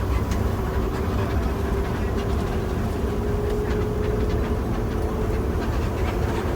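Intercity bus engine running with a steady low drone, heard from inside the bus, with a steady hum above it.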